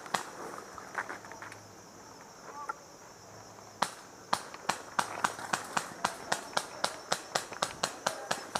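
Footsteps on a forest floor at a quick, regular pace of about three steps a second, starting about four seconds in after a quieter pause. A faint, steady high insect drone sits underneath.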